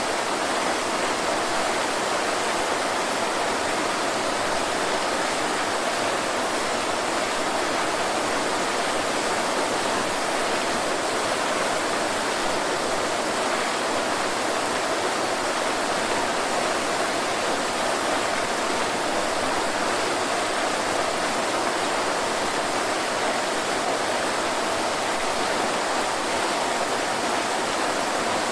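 Waterfall: a steady, unbroken rush of falling water, even throughout, with the most weight in the middle range and little deep rumble.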